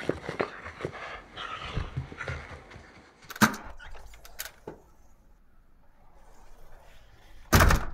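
Whippet moving about and breathing, with noisy scuffles over the first three seconds. A sharp click comes about three and a half seconds in, followed by a couple of smaller ones, and a short loud knock near the end.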